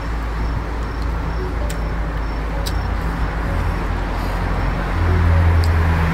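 Steady road-traffic noise, with a vehicle's low engine hum growing louder about five seconds in. A few faint clicks sound along the way.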